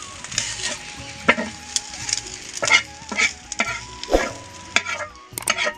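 Small fish frying on a flat tawa with a steady sizzle. A flat metal spatula scrapes across the pan in repeated strokes, about one every half second to second, as the fish are turned and lifted off.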